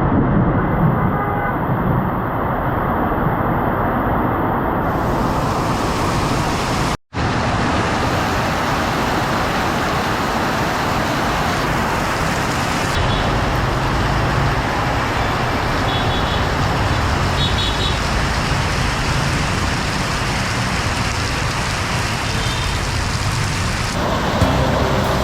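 Steady rumble of vehicles passing a road-rail level crossing, with a few short horn beeps in the second half. The sound drops out briefly about seven seconds in.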